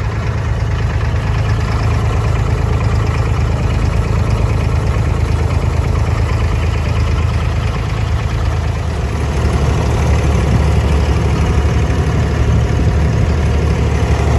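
Abra water taxi's inboard diesel engine running steadily with a low hum; about nine seconds in its note drops and grows a little louder.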